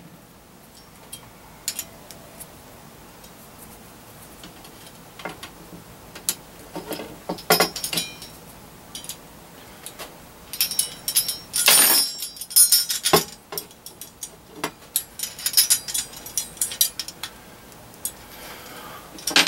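Small metal hardware clicking, clinking and scraping as a screwdriver tightens a screw that clamps a metal antenna rod into a small bracket. Scattered light taps and rattles, busiest about eleven to thirteen seconds in and again around fifteen to seventeen.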